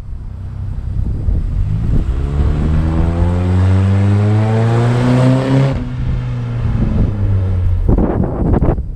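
Chevrolet S10 pickup's engine heard through a Cherry Bomb muffler, accelerating: the exhaust note climbs steadily in pitch for about three and a half seconds, then drops back and runs on level. Wind rumble on the microphone near the end.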